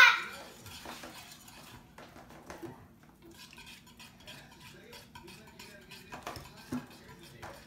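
Metal spoon stirring glue-and-contact-solution slime in a mixing bowl: faint, irregular clicks and scrapes of the spoon against the bowl as the slime is stirred until it thickens.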